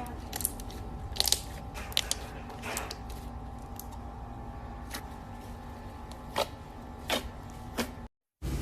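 Slime being squished and poked, giving short sharp pops and clicks every second or so over a faint steady hum.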